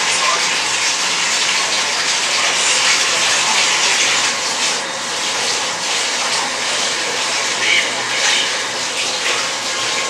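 Tap water running steadily in a hiss as hair is rinsed under it.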